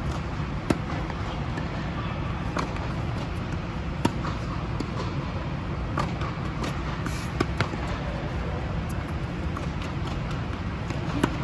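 Tennis balls struck by rackets and bouncing on a hard court during a light rally: a sharp pop every second or two over a steady hum.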